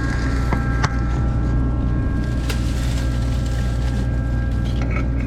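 Farm harvest machinery's engine running steadily with an even drone, with a couple of sharp clicks about one and two and a half seconds in.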